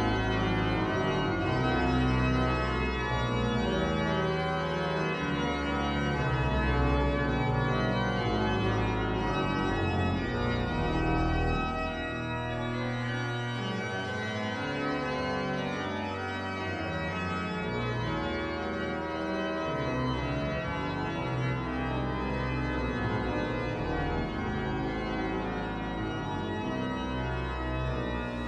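Organ music of slow, held chords over a sustained bass.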